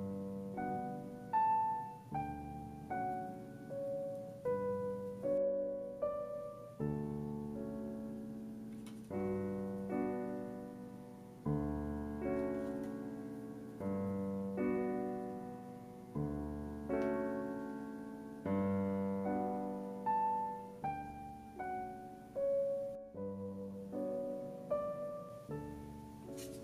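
Slow solo piano background music, single notes and chords struck about once a second over sustained bass notes.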